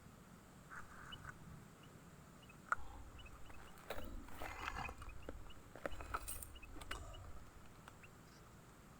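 Faint, short, high bird chirps scattered throughout, with rustling and a few clicks in the middle seconds.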